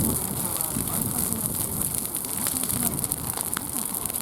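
Wood fire burning: a steady hiss with scattered sharp crackles and pops.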